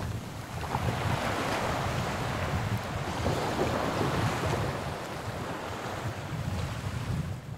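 Wind gusting over the microphone, with water splashing and lapping around a sailboat's bow.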